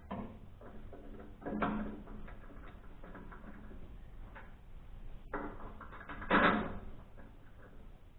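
Quiet handling noises while working on a wood chipper's knife assembly, with two clunks, one about one and a half seconds in and a louder one about six and a half seconds in.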